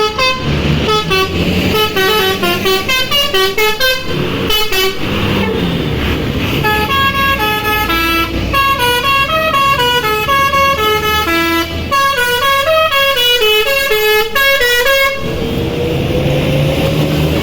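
Bus telolet horn, a multi-tone musical horn, playing quick runs of stepped notes over and over above the bus engine's running rumble. The horn stops about fifteen seconds in, leaving the engine and a slowly rising tone.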